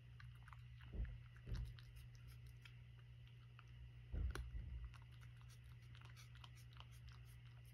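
Domestic cat eating from a dish, with a run of small wet clicks and crunches of chewing and licking. A few dull thumps stand out, the loudest about four seconds in.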